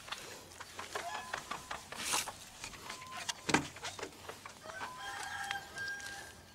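Scattered clicks and rubbing as a foam applicator pad is worked over car paint, with one louder knock about halfway through. A bird calls in the background: a few short chirps, then a longer call held steady in pitch about five seconds in.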